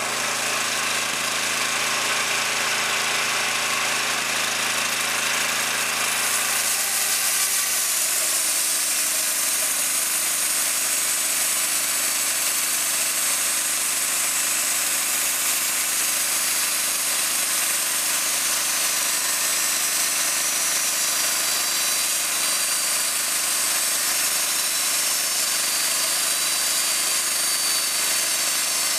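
11-horsepower gasoline engine running steadily, driving a restored early-1900s C.H. Wood resaw bandsaw. About six to seven seconds in, the sound shifts to a brighter, steady hiss as the blade starts cutting through a board of old-growth heart pine.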